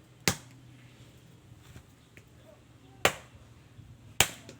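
Three sharp, loud clicks with a short ringing tail: one just after the start, then two more about three and four seconds in.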